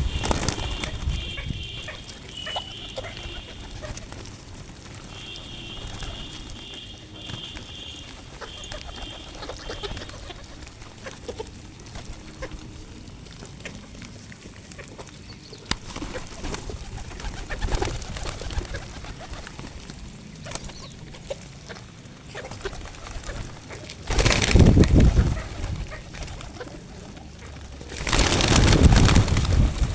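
Pigeons cooing at a feeding spot, with high, evenly repeated chirps through the first ten seconds. Two loud rushing bursts come near the end.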